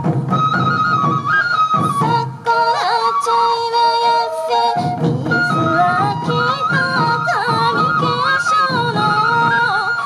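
Sansa odori festival music: Japanese bamboo transverse flutes (yokobue) play the melody over a massed beat of hand-held sansa taiko drums. The drumming breaks off for about two seconds a couple of seconds in while the flutes carry on, then comes back in.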